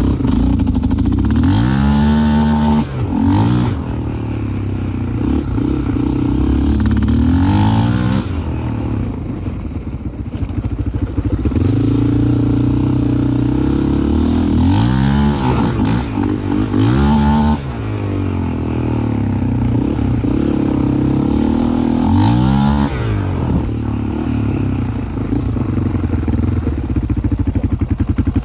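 2001 Yamaha Raptor 660's single-cylinder four-stroke engine running at low revs, blipped about six times so that the pitch rises and falls. Its stumbling at low rpm is the misfire the owner is chasing, which persists with new carburettors.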